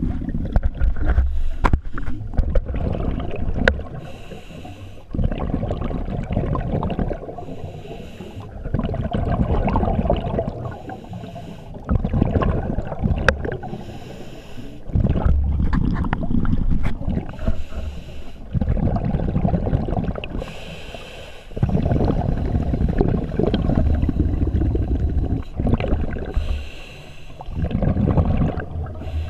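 Scuba diver breathing through a regulator underwater, a breath about every four seconds. A short hiss of inhaled air through the regulator alternates with a longer gurgling rush of exhaled bubbles.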